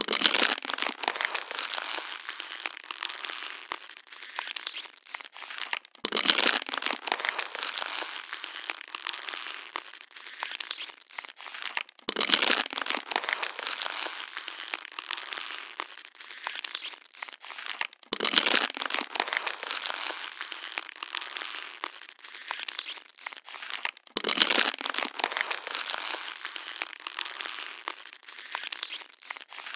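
Plastic water bottle being crushed and crinkled: dense crackling that swells loud about every six seconds, then eases off, the same cycle coming round five times.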